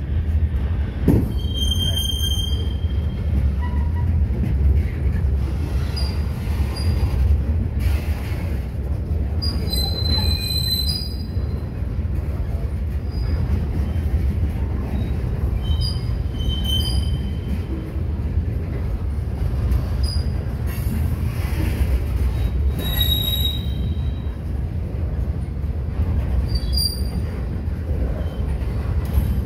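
Freight train cars, mostly covered hoppers, rolling past at close range: a steady low rumble of steel wheels on rail, broken every few seconds by short high-pitched wheel squeals.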